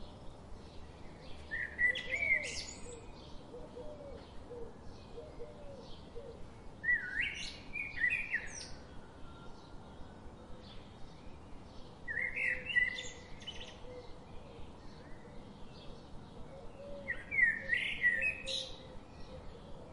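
Birdsong: a bird sings a short, quickly warbling phrase about every five seconds, four times, over soft regular chirps repeating two or three times a second.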